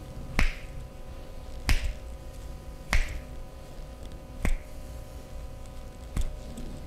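Five sharp, snapping cracks from hands during a massage, spaced a little over a second apart, the kind of finger snaps or joint pops made in a Turkish-style barber massage.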